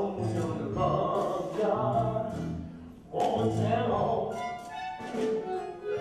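Musical-theatre song: a man singing over live band accompaniment with a steady bass line.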